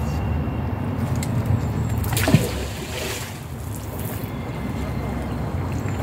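A sharp knock about two seconds in, then a splash of water lasting roughly two seconds, over a steady low rumble.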